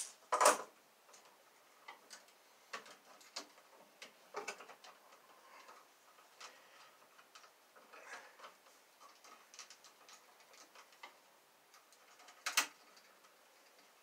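Irregular small clicks and taps of a screwdriver working the terminal screws of a 20-amp commercial-grade wall outlet, with the wires and the outlet being handled. A sharper click comes about half a second in and another near the end.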